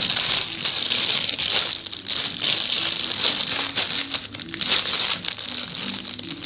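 Plastic wrapping crinkling and crackling as it is handled, a continuous run of small crackles.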